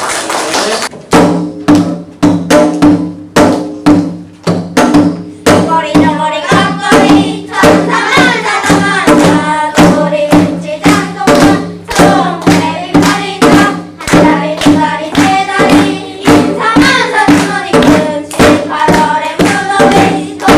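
Janggu (Korean hourglass drum) beaten in a steady rhythm, starting about a second in, with a children's choir singing a Korean folk song (minyo) over it from about five seconds in.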